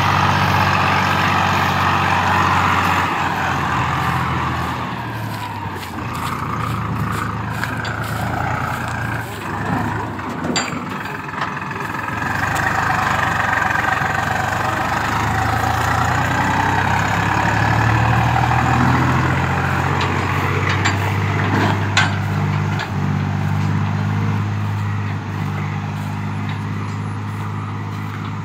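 TAFE tractor's diesel engine running steadily as it works a muddy harvested rice field, its pitch shifting a little now and then. A few short sharp knocks sound over it midway and again later.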